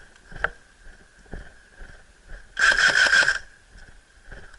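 Airsoft gun firing a short full-auto burst about two and a half seconds in, a rapid rattle lasting under a second that starts and stops abruptly. A few single faint clicks come before it.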